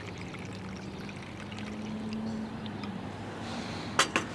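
Denatured alcohol trickling from a Trangia fuel bottle's valve spout into a brass spirit burner, over a low steady hum. Near the end come two sharp knocks a moment apart, as the pour stops.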